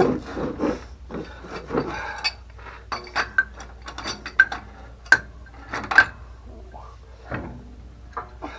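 Metal clinks, clicks and knocks of a wrench working at a very tight pipe union on a water pump's plumbing; the fitting is not breaking free and the pipe turns with it. Several sharp, ringing clinks come singly about a second apart in the middle.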